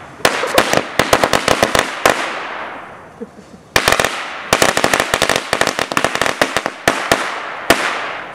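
Strings of firecrackers going off in a burning pile on the ground: rapid runs of sharp bangs in two long bursts, with a lull of about a second and a half between them.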